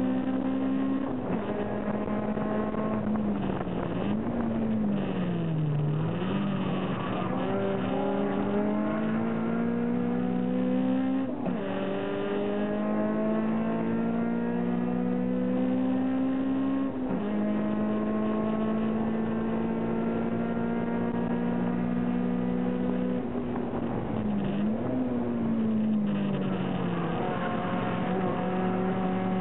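Honda B16A 1.6-litre four-cylinder VTEC engine of an EG Civic race car, heard from inside the cabin under hard acceleration. The pitch climbs steadily and drops sharply at two upshifts, about a third of the way in and just past halfway; twice, early and near the end, the revs fall away and climb again.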